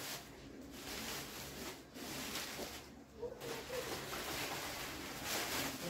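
Rustling and handling of small plastic-packaged toys as they are gathered up.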